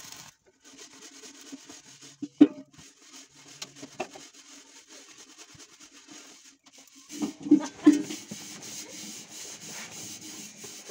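Gas stove burner hissing while a whole plucked chicken is singed in its flame, with rubbing and knocks as the bird is turned against the burner; the loudest knocks come about two and a half seconds in and again around seven and a half to eight seconds in.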